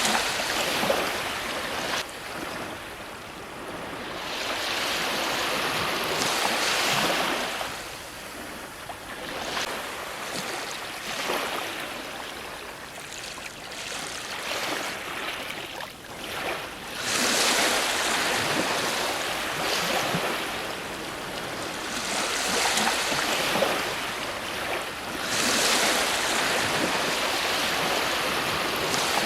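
Ocean surf: waves breaking and washing up the shore in repeated surges every few seconds, with the strongest crashes near the start, about halfway through, and again near the end.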